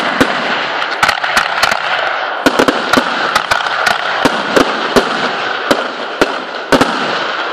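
Fireworks display: aerial shells bursting in a rapid string of sharp bangs, about two to three a second, over a continuous hiss.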